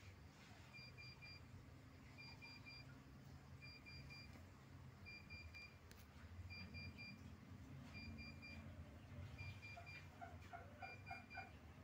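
Faint electronic beeping: a short run of three or four high beeps repeating roughly every second and a half, over a low hum. Near the end a second, lower series of about five quick pips joins in.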